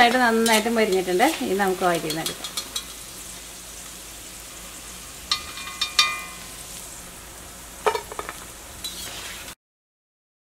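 Vada batter fritters sizzling steadily in hot oil in a wok, with a slotted steel spatula clinking against the metal as they are scooped out, a ringing clink about five to six seconds in and another near eight seconds. A voice is heard briefly at the start, and all sound cuts off abruptly near the end.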